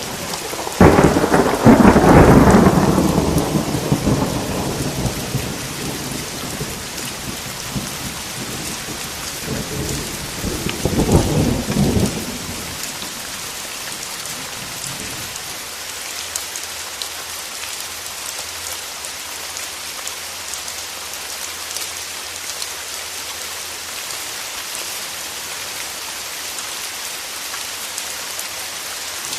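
Steady rain with a loud thunderclap about a second in that rumbles away over several seconds, then a second, shorter rumble of thunder about eleven seconds in.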